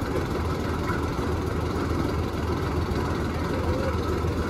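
1955 John Fowler diesel shunting locomotive's engine idling, running steadily with a deep, even sound.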